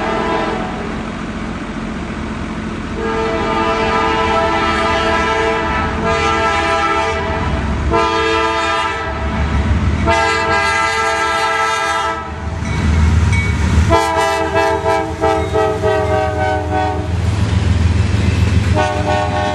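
Freight train locomotive's air horn sounding a chord in about five long blasts as it approaches a grade crossing. A deep rumble of the train passing builds under the horn in the second half.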